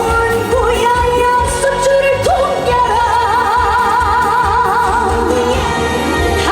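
A woman singing an upbeat trot song live with band accompaniment. She slides between notes and holds one long note with a wide vibrato in the middle.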